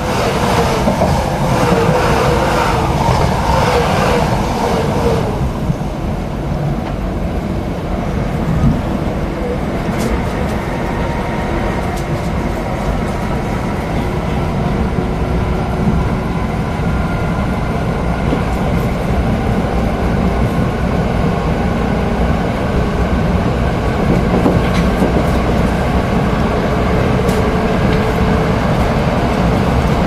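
Passenger train running, heard from inside the carriage: a steady rumble of wheels on track with a few sharp clicks. Wavering high tones sound over the rumble for the first five seconds, then stop.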